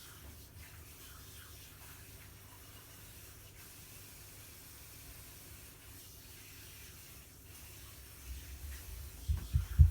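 Faint steady room hiss, then a few short, dull thumps in the last two seconds, the loudest right at the end.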